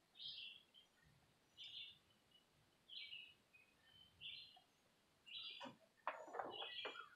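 A bird chirping again and again, faint short high calls about every second and a half. A few clicks and knocks join in near the end.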